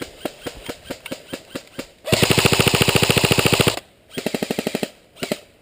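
Airsoft electric rifle, a VFC SCAR-L, firing. A string of single shots comes first. About two seconds in there is a long, fast full-auto burst, then a shorter burst and a brief one near the end.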